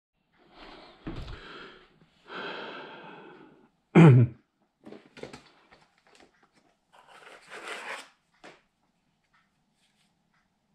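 Handling noises as an aluminium carry case for a metal detector is opened and its control box lifted out: rubbing and scraping, small clicks, and one loud short thump about four seconds in.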